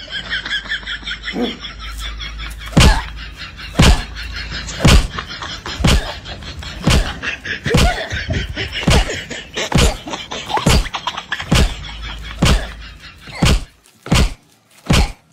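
A man's backside slammed down again and again onto a blue-painted post. Heavy thumps come about once a second and quicken near the end.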